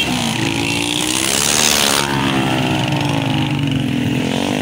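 Several small motorcycles riding past in a group, their engines rising and falling in pitch as they go by, with a brief hiss about a second in.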